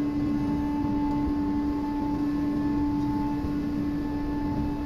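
Steady drone of running foundry machinery: one constant hum over a low rumble.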